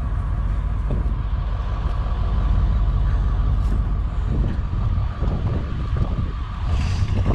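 A heavy vehicle's engine running steadily, with a faint steady whine above the drone.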